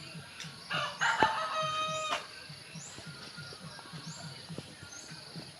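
A rooster crows once about a second in, a single call ending in a held, steady note about a second long. Under it a low pulsing rhythm repeats about four times a second.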